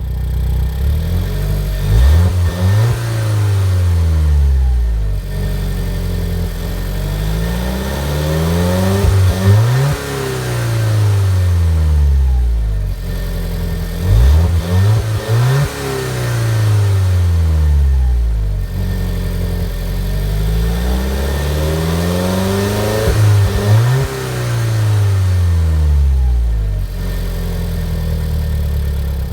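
Alfa Romeo 4C's 1.75-litre turbocharged inline-four engine revving up and dropping back about four times, the pitch climbing and falling with each rev and settling steady in between.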